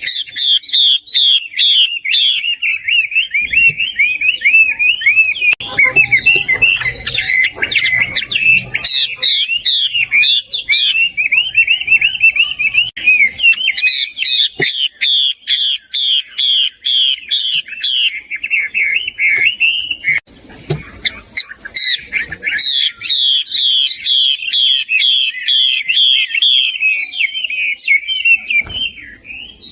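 Female Chinese hwamei (Garrulax canorus) singing a long, loud, rapid song of runs of quickly repeated whistled notes, faltering briefly about twenty seconds in before starting again.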